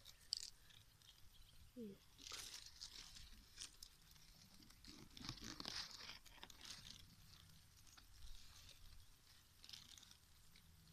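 Faint rustling and scratching of leaves and dry grass stems brushing against the phone as it is pushed in among the plants, in a few short bursts over near silence.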